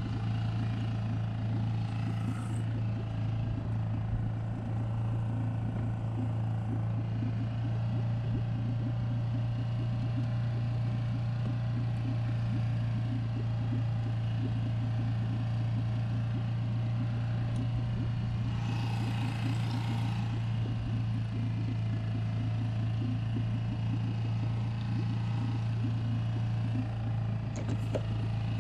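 Honda four-stroke outboard motor running steadily at slow trolling speed, a constant low hum. A brief hiss rises over it about two-thirds of the way through.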